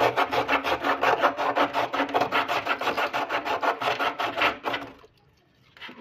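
Rapid back-and-forth scraping of a refrigerator's copper pipe joint, about six strokes a second, stopping about five seconds in. The leaking condenser joint is being scraped clean to prepare it for brazing.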